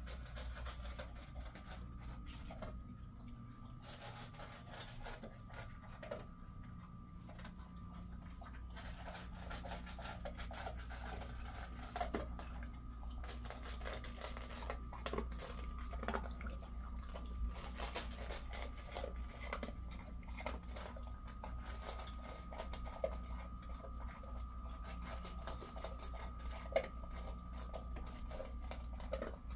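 A Jindo dog eating dry kibble from a steel bowl: a steady, irregular run of crunching and chewing, with a few louder clicks.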